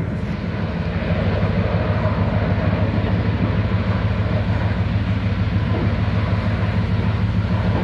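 Heavy machinery at a scrap metal yard running with a steady, deep droning hum under a rough mechanical din.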